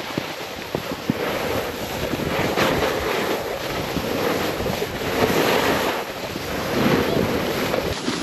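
Snowboard sliding and carving over slushy spring snow: a rushing scrape that swells and eases every couple of seconds, with wind buffeting the microphone.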